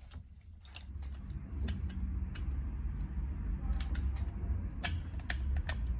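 Light metallic clicks and taps of steel parts being fitted by hand into an ATV's aluminium rear gear case, irregular and scattered, the sharpest about four and five seconds in, over a low steady hum.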